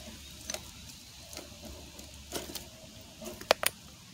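Redcat Gen7 RC rock crawler clambering over rocks: scattered sharp clicks and knocks as its tyres and chassis strike stone, the two loudest in quick succession about three and a half seconds in, over a faint steady low rumble.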